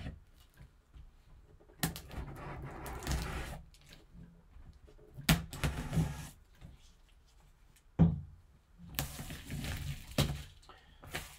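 A cardboard box being handled with gloved hands: spells of scraping and rustling against the cardboard, broken by three sharp knocks, the loudest about two-thirds of the way through.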